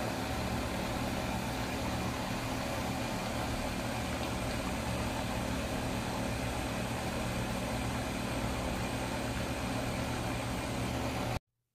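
Steady machine hum: an even rushing noise over a low drone, unchanging, cutting off suddenly near the end.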